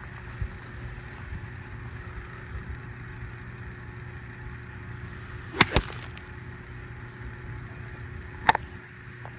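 Golf club striking a ball off pine straw: a sharp double click a little past halfway. A single sharp click follows about three seconds later.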